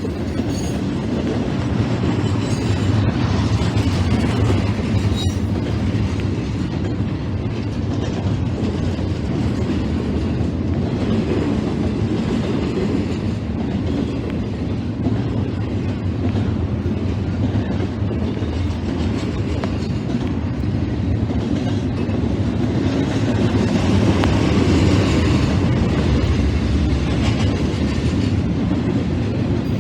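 Freight train cars rolling past on the rails, a steady loud rumble of wheels and cars without horn or engine tone.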